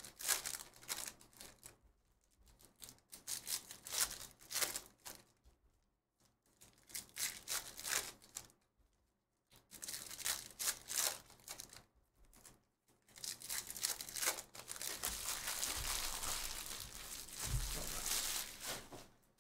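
Foil trading-card pack wrappers being torn open and crinkled by hand, in several short bursts, then a longer stretch of crinkling near the end with a couple of dull thumps.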